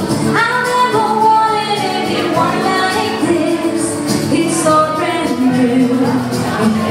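A woman singing a pop song into a microphone, with electric and acoustic guitar accompaniment played live through small amplifiers.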